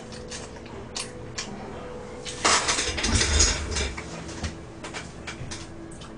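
A person getting up from a desk chair and moving about: scattered light clicks and knocks, with a louder stretch of rustling and a low thump about two and a half seconds in.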